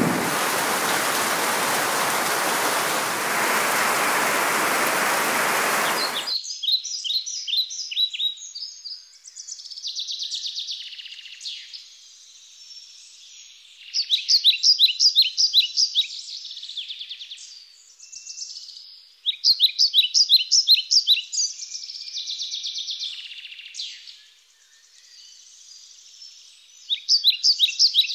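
Steady rain that cuts off abruptly about six seconds in, followed by birds singing: bursts of quick repeated high chirping notes, loudest in three spells, with softer calls between.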